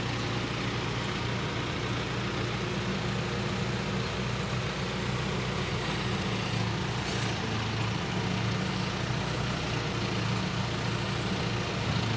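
Aichi manlifter truck's engine running at a steady speed to power the hydraulic pump while the boom is being operated. A faint thin high tone sounds through the middle of the run.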